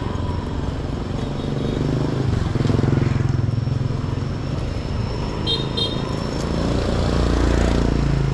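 Motorbike engines running and passing close by in street traffic, one rising in pitch near the end, with two short high beeps about five and a half seconds in.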